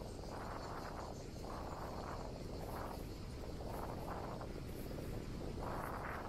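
Wind and rolling noise from riding a bicycle, a rushing hiss on the camera's microphone that swells and eases about once a second, over a faint steady insect chirring.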